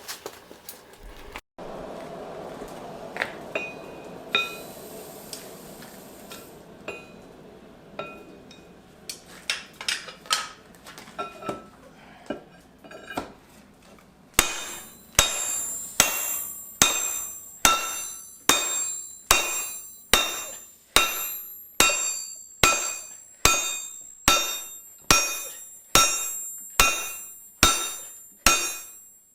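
Blacksmith's hammer striking hot steel on an anvil: scattered blows at first, then from about halfway a steady run of ringing strikes a little over one a second.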